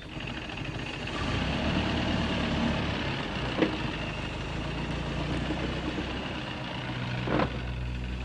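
Vintage truck engine running steadily at low revs, growing louder about a second in. Two short sharp knocks, one a few seconds in and one near the end.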